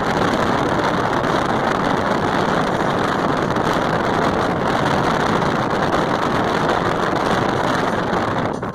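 Loud, steady rush of wind buffeting the microphone, with no clear engine tone, easing off near the end.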